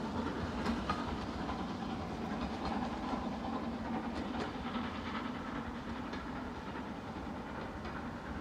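Steam train hauled by S&DJR 7F 2-8-0 No. 53808 rolling away, its wheels clicking over the rail joints over a steady rumble. The sound fades slowly.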